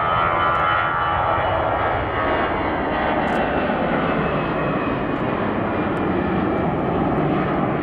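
Airbus A320's twin jet engines at takeoff thrust as the airliner lifts off and climbs out. The roar is steady and loud, with a high whine that fades in the first second or so.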